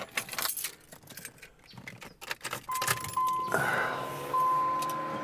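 Keys jingling and a few clicks inside a 1994 Pontiac Trans Am. A steady high electronic warning chime with brief breaks then starts, and a low motor hum rises as the pop-up headlights are switched on and lift.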